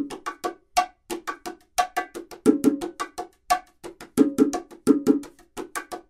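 Tycoon 30th Anniversary ash-wood bongos fitted with new Remo heads, played with bare hands: a fast, steady rhythm of about five or six strokes a second, sharp slaps mixed with ringing open tones.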